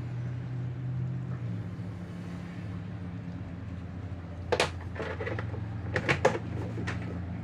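A steady low hum, with a few sharp knocks or clicks: one about four and a half seconds in and a short cluster around six seconds in.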